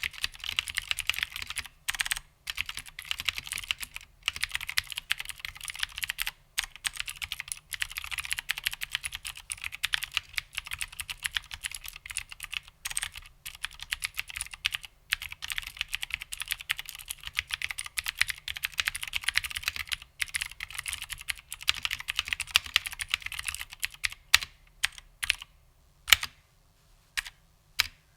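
Fast typing on an HMC C386SX keyboard with vintage Cherry MX Blue clicky switches: a dense run of clicking keystrokes broken by short pauses. Near the end it slows to a handful of separate key presses, then stops.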